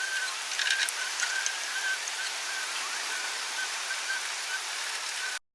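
Steady outdoor hiss, with a short high chirp repeating about three times a second and a few faint clicks in the first second; it cuts off suddenly near the end.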